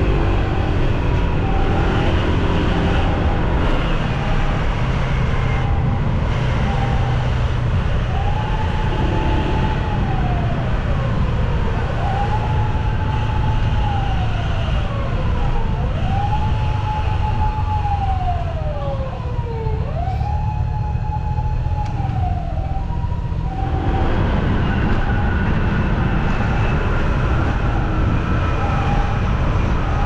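Japanese ambulance on an emergency run sounding its two-tone 'pee-po' electronic siren, a repeating steady tone. From about eight seconds in its mechanical motor siren howls four times over it, each wail rising quickly, holding, then sliding down, sounded as a warning on approaching an intersection; after that the two-tone siren alone carries on.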